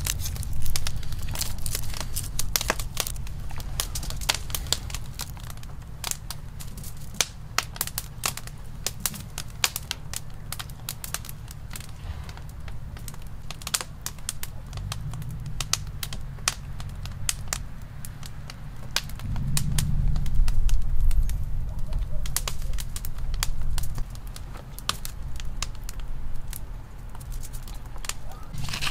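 Wood fire crackling, with many irregular sharp pops and snaps over a low rumble that swells about twenty seconds in.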